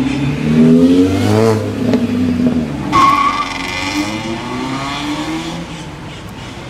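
Car engine revving as a car accelerates away, its pitch rising and falling. About three seconds in comes a sudden louder burst with a brief high squeal.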